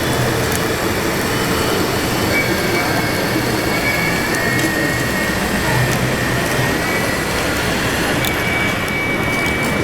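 Thin whine of large-scale RC construction models' electric drives and hydraulic pumps working, shifting slightly in pitch, over a steady dense din.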